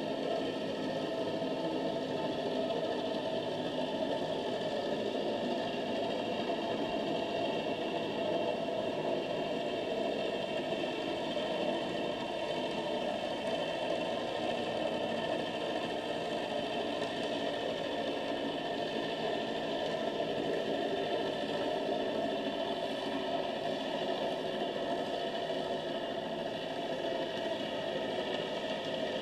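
Steady underwater hum and hiss with a low mechanical drone, unchanging throughout, with no distinct events.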